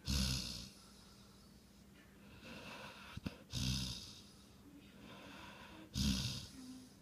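Snoring: three loud snores roughly every three seconds, with quieter breathing between them. A brief click comes just before the second snore.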